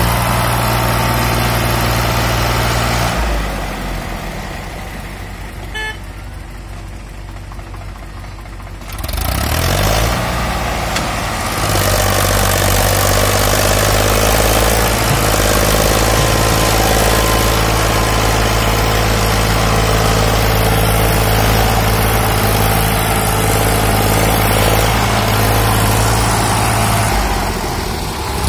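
Sonalika DI 47 RX tractor's diesel engine working hard while pulling a fully loaded trolley. It drops back to a lower, quieter note about three seconds in, revs up again around nine seconds, holds a strong, steady note, and eases off near the end.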